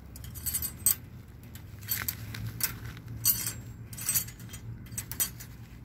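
Wire cage trap rattling and clinking in short, irregular jingles as it is handled to release a cat.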